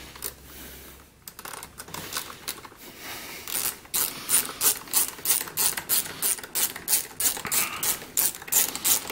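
Hand socket ratchet clicking as it backs out a fastener in quick back-and-forth strokes; the clicks are scattered at first, then settle into a steady run of about three or four a second from about three and a half seconds in.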